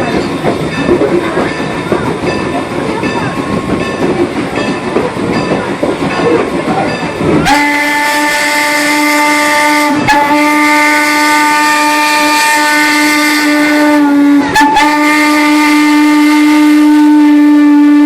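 Steam locomotive whistle blowing in long blasts over the running train, starting about seven seconds in and breaking off briefly twice. Before it, the moving train's rumble and rattle.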